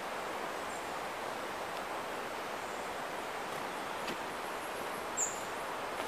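Rainforest ambience: a steady rushing hiss, with a short high bird chirp about five seconds in and a few light ticks.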